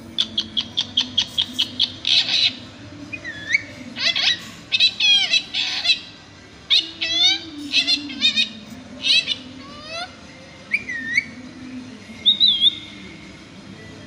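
Indian ringneck parakeet calling: a quick run of short high chirps, then harsh squawks and rising and falling whistled notes, with the calls thinning out near the end.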